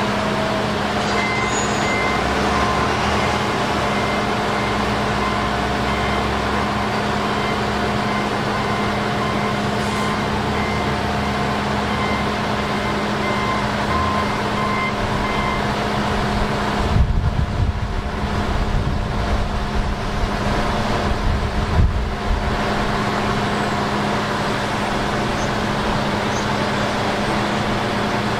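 Diesel engines of railroad work equipment idling with a steady hum, while an electronic warning beeper sounds repeatedly through the first half. A stretch of louder low rumbling comes about two thirds of the way in.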